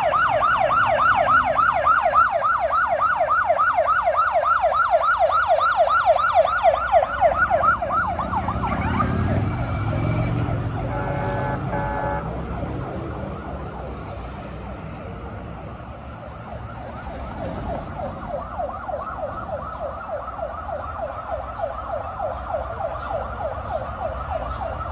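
Emergency-vehicle sirens of a police motorcycle escort and ambulance, sounding in a fast yelp of about five sweeps a second, loud for the first eight seconds. Around ten seconds in the ambulance passes with an engine rumble and a short horn blast. The sirens then carry on more faintly.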